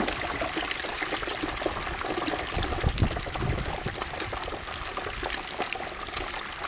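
A whole turkey deep-frying in a pot of hot oil at about 325°F, the oil bubbling and sizzling steadily with dense crackle, and a low bump about three seconds in.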